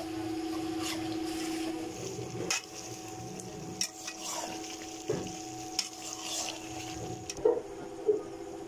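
Metal spatula stirring and scraping chicken and ginger-garlic paste frying in ghee in an aluminium karahi, with a faint sizzle and scattered sharp clicks of metal against the pan. A steady low hum runs underneath.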